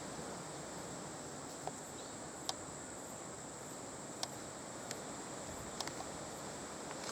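Insects calling in a steady high-pitched drone over a soft outdoor hiss, with several sharp clicks scattered through it.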